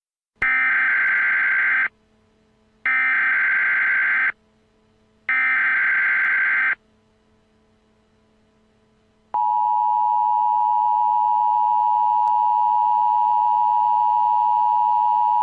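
Emergency Alert System tones: three short bursts of the SAME data-header warble, about a second apart. After a pause of a couple of seconds, the steady two-tone EAS attention signal starts and holds.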